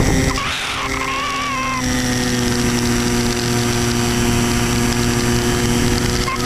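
Electric motor and propeller of an Easystar 2 RC model plane running steadily in flight, heard from the onboard camera with wind rush on the microphone. A wavering higher whine sounds over the first two seconds, then the motor hum settles to a slightly different steady pitch.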